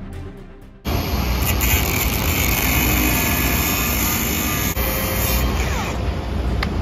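Angle grinder cutting steel, starting abruptly about a second in, chopping the top off a damaged threaded union. The high hiss of the disc in the metal eases a little around five seconds in while the motor keeps running.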